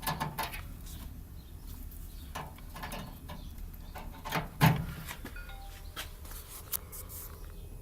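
Handling noise from plugging a USB cable into a laptop: scattered light clicks and knocks, with one louder knock a little past the middle, over a low steady hum.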